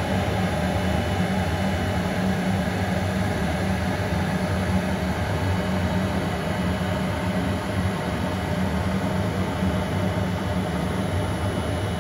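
Okamoto surface grinder running, a steady low hum with hiss as the table carries the magnetic chuck past a dial test indicator.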